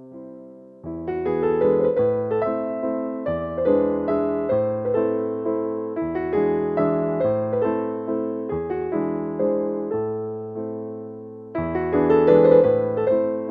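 Background music: gentle piano, notes struck in a steady rhythm over changing chords.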